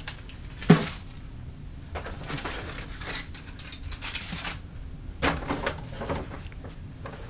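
Handling noise from unpacking a takeaway meal: a brown paper bag rustling and aluminium-foil parcels crinkling as they are picked up and set down. A single sharp knock comes under a second in.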